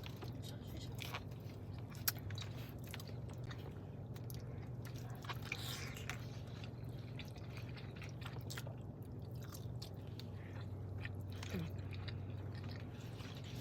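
A person chewing and biting food close to the microphone, with irregular small mouth clicks and crunches.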